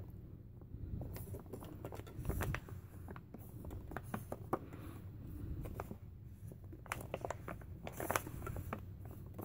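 Metal utensil scraping black beans in sauce out of a foil MRE retort pouch onto a stainless steel tray: scattered scrapes, crinkles of the pouch and soft clicks.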